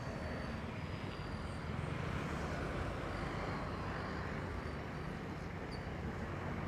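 Road traffic going by: cars and motorcycles passing, a steady rush of engine and tyre noise that swells a little a couple of seconds in.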